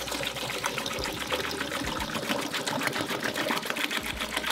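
Distilled malt vinegar poured in a steady stream from a plastic jug into an emptied toilet bowl, splashing into the shallow pool at the bottom with a rapid, even patter.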